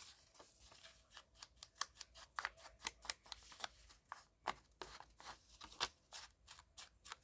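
Foam ink-blending tool dabbed and swiped along the edges of a piece of paper, inking the edges dark: a faint, irregular run of soft taps and brushing strokes, a few a second.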